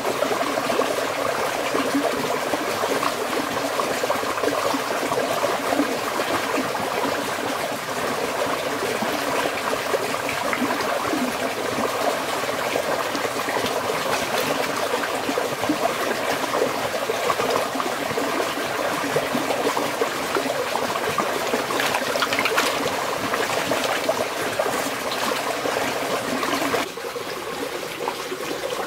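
Stream water running steadily over rocks, with occasional splashing as hands grope through the shallows. It gets quieter near the end.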